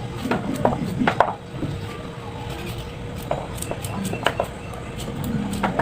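Kitchen work: scattered knocks and clatter of a knife, utensils and pans, over background music.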